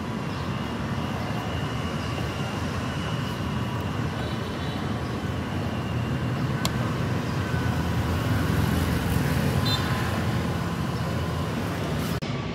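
Street traffic: a steady hum of passing vehicles, with an engine growing louder about two-thirds of the way in. A single sharp knock about halfway through.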